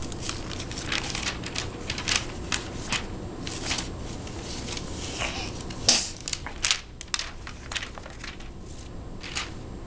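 Irregular crackling and rustling of a small children's picture book being handled, opened and its pages turned, with the loudest crack about six seconds in, over a steady low room hum.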